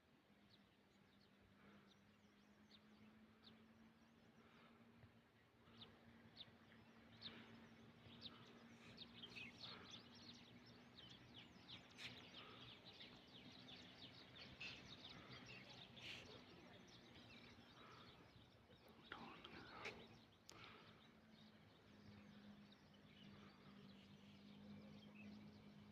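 Faint birdsong: many short, high chirps, busiest through the middle, over a faint steady low hum.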